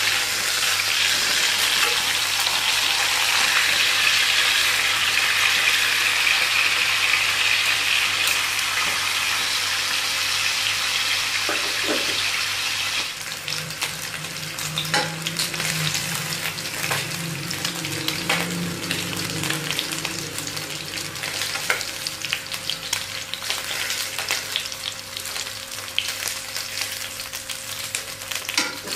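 Food frying in hot oil in a pan, sizzling loudly, then settling to a quieter sizzle about halfway through, with scattered clicks and scrapes of a utensil stirring in the pan.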